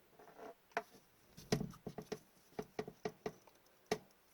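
Trading cards and their plastic holders being handled and set down on a table, giving a series of irregular light taps and clicks.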